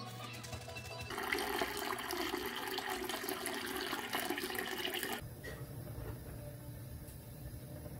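Water running from a water dispenser's spout into a glass measuring cup: a steady filling stream that starts about a second in and stops about four seconds later. A quieter low hum follows.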